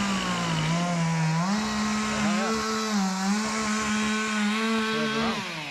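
Chainsaw held at full throttle, its engine note dipping slightly now and then as it works through wood. About five seconds in the throttle is released and the engine winds down.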